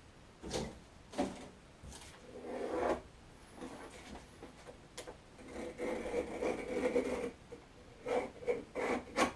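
Rough scraping and rubbing strokes from a foam tile backing board being worked on a workbench and scored with a knife along a straightedge. A few short strokes come first, then a longer scrape of about two seconds in the middle, and quick short strokes near the end.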